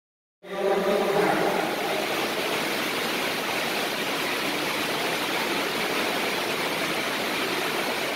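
Heavy rain on the roof of an indoor sports hall: a steady, even rush that cuts in suddenly about half a second in.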